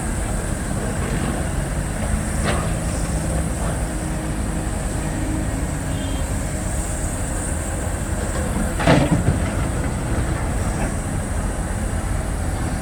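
Heavy diesel engine of the earthmoving machinery running steadily, with a sharp metallic knock about two and a half seconds in and a louder one about nine seconds in.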